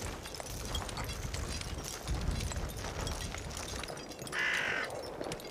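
A crow cawing once, one harsh call about half a second long near the end, over a low rumble and scattered faint knocks.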